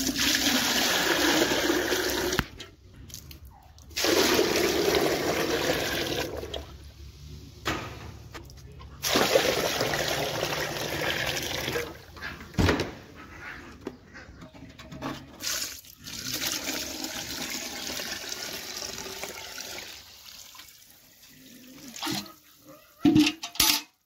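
Water poured from a large pot into an aluminium bucket onto a dry feed mix, gushing in several pours with short breaks between them. A few sharp knocks, one about halfway and a cluster near the end.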